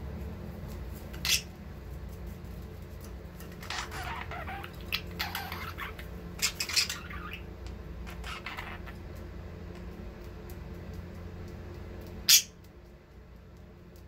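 A pair of budgerigars chirping and chattering in short bursts while courting, over a steady low hum. There is one louder, sharp burst near the end.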